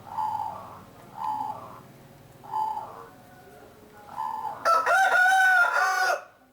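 A zebra dove (perkutut) cooing in short repeated phrases about every second and a half, then a rooster crowing loudly for about a second and a half near the end.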